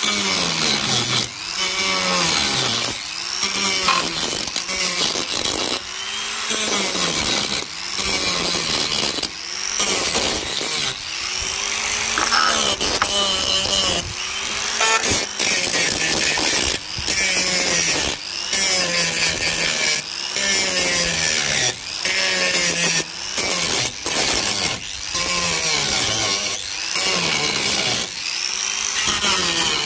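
Angle grinder with a thin cutting disc cutting through the rusty sheet-steel seam of a car's scuttle panel. The motor's pitch drops each time the disc bites into the metal and recovers as it is eased off, over and over, about once every second or two.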